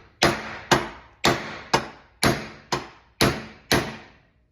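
Hammer blows driving the worn pin out of a 1966 Chevrolet C10 door hinge: eight sharp metal-on-metal strikes, about two a second, each ringing briefly.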